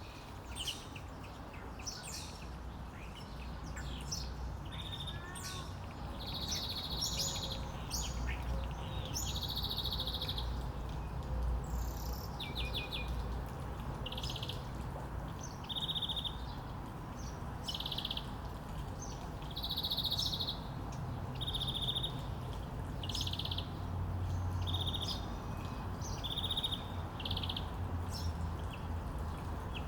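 Small songbirds chirping: short trilled phrases repeated every second or two, with quick high sweeping notes between them. A low rumble sits underneath.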